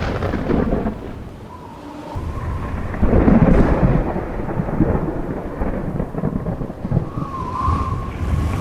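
Thunderstorm: rolling thunder over rain, easing off briefly and then rumbling back louder about three seconds in. A wavering whistle like wind rises near the end.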